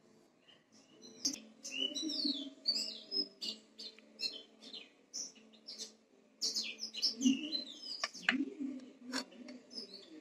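Birds chirping: many short, quick calls that slide up and down in pitch, busiest in two spells, over a low steady hum.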